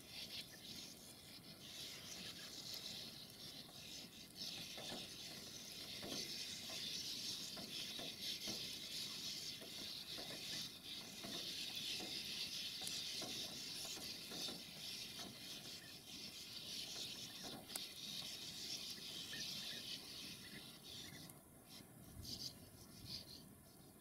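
Many sand martins twittering at once at their burrow colony, a dense continuous chatter that thins out near the end.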